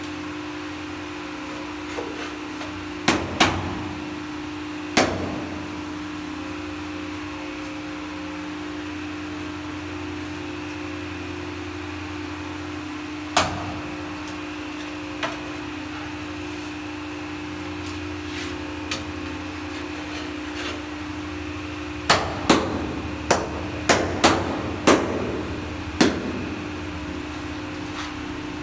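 Sharp knocks as ceramic wall tiles are tapped into place: single knocks a few seconds apart, then a quick run of about eight near the end. A steady low hum runs underneath.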